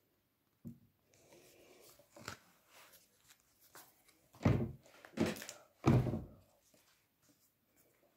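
The thick cardboard pages and flaps of a handmade scrapbook are being folded shut against a wooden table: paper rustles and shuffles, then come three dull thunks in quick succession a little past halfway, as the heavy boards close down.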